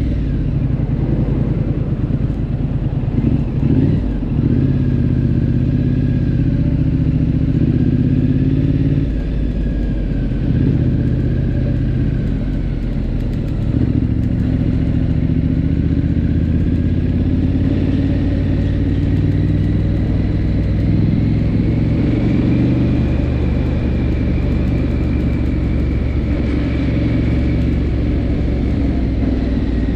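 Triumph Scrambler 900's parallel-twin engine running steadily under way. Its note drops about nine seconds in, then climbs gradually over several seconds as the bike accelerates, and holds steady after that.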